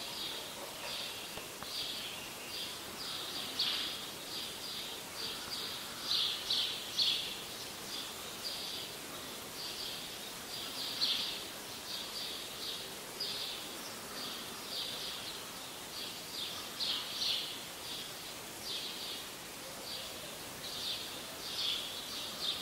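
Continuous high-pitched chirping, short chirps coming two or three a second and varying in loudness.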